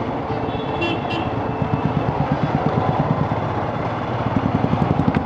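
Royal Enfield Scram 411's single-cylinder engine running steadily while the bike is ridden through traffic, its firing pulses a fast, even beat.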